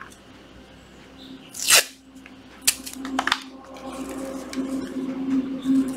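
Handling noise from a hard plastic Hitachi 18V cordless work light being picked up and moved about, with a short swish about two seconds in and two light clicks soon after, over a faint steady hum.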